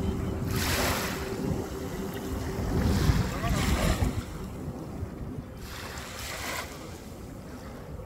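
Small waves washing up on a sandy shore, a swell of hiss about every three seconds, over a low rumble of wind on the microphone.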